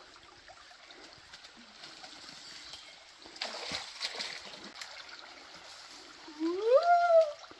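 Rushing water of a swollen, flooded creek, with splashing about three and a half seconds in as someone wades through it. Near the end a person lets out one long wordless call that rises and then falls in pitch.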